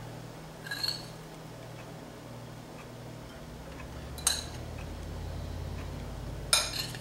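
Metal spoon clinking against glass Pyrex dishes and a glass mixing bowl while cooked chicken is spooned out: a few scattered sharp clinks, one about a second in, one a little past the middle and two close together near the end, over a low steady hum.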